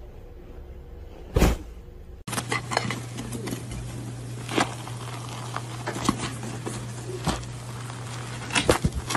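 One dull thump, then, after a cut, a run of irregular sharp crackles and crinkles as hands tear apart a crisp chocolate shell with a runny filling, over a steady low hum.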